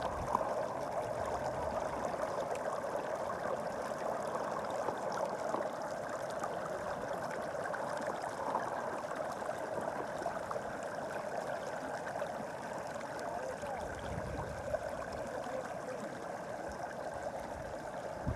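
Stream water flowing and trickling steadily, an even babbling rush with small splashes.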